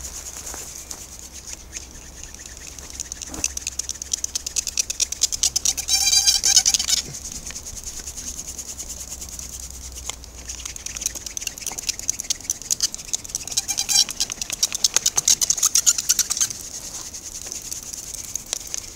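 Rapid, rhythmic wood-on-wood scraping in two louder bursts, with a brief squeak about six seconds in.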